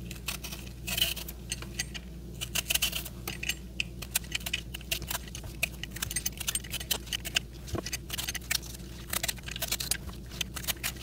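Irregular light clicks and taps of a kitchen knife on a wooden cutting board while bell peppers are trimmed and cut, with the pepper pieces being handled, over a faint steady hum.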